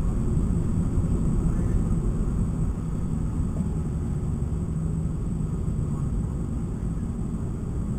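Cabin noise inside a stock 2012 Mitsubishi Lancer driving on a race track: the engine running steadily under a low road and tyre rumble, which eases slightly about three seconds in.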